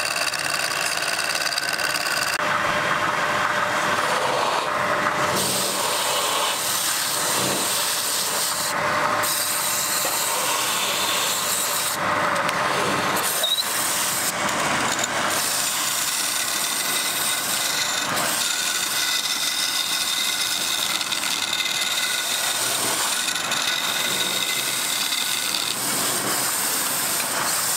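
Wood lathe turning a wooden goblet blank while a hand-held turning tool cuts into the spinning wood: a steady scraping hiss that shifts abruptly in tone several times.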